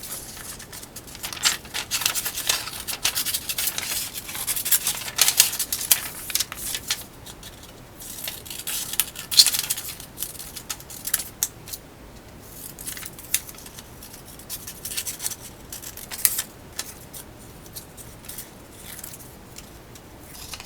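Scissors cutting paper in irregular runs of short snips, with pauses between runs.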